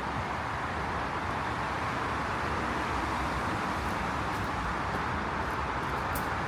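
Steady roar of traffic on a nearby interstate highway, an even wash of tyre and engine noise.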